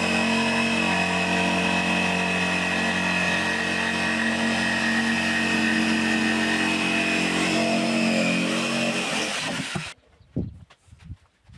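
A motor-driven machine runs steadily at a constant pitch, then cuts off abruptly about ten seconds in, leaving a few faint knocks.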